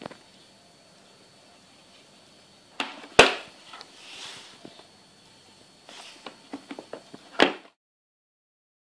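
Hard plastic tackle boxes being handled on a table: a sharp knock about three seconds in, a brief rustle, then a quick run of small clicks and a second sharp knock. The sound cuts off suddenly near the end.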